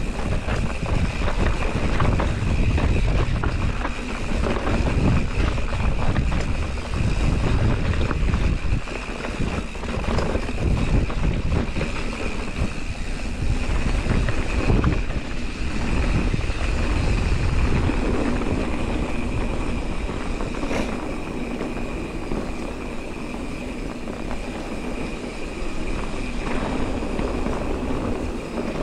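Mountain bike descending a dirt forest trail: wind rushing over the bike-mounted microphone and tyres rolling on dirt, with frequent short knocks and rattles from the bike over bumps.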